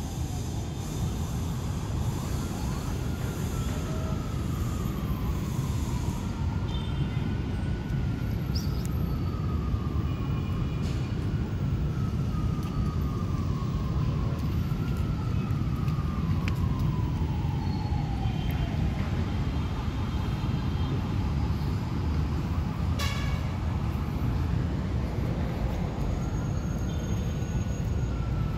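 An emergency vehicle's siren wailing, its pitch rising and slowly falling again every few seconds, over a steady rumble of traffic.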